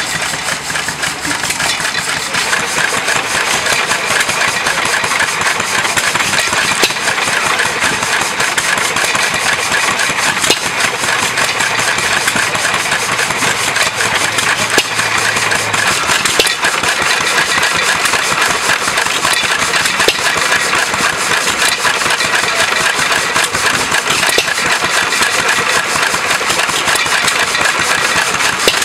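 Small antique hit-and-miss stationary gas engine running steadily, belt-driving a geared water pump jack.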